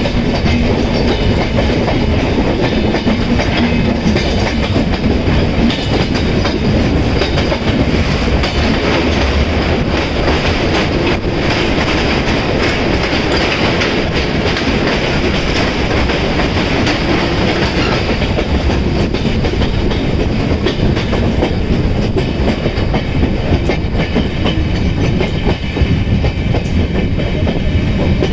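Passenger express train running along the track: a loud, steady rumble of wheels on rails with clickety-clack.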